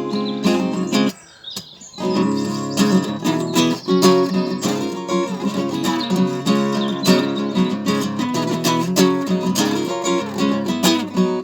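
Acoustic guitar strummed steadily through an instrumental break between vocal lines, stopping briefly about a second in, where faint birdsong shows through.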